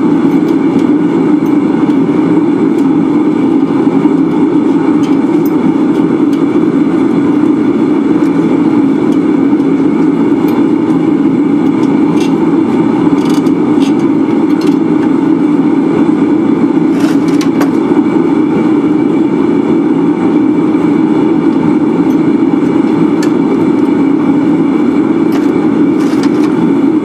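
Steady, loud drone of a running shop machine's electric motor, with a few faint ticks.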